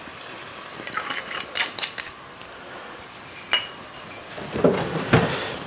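Kitchenware clinking and clattering as it is handled: a few light ringing clinks about a second in, one sharper ringing clink past the middle, and some clatter near the end.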